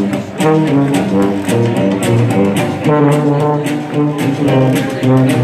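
Small traditional jazz band playing live, with brass horns over tuba and strummed guitar to a steady beat.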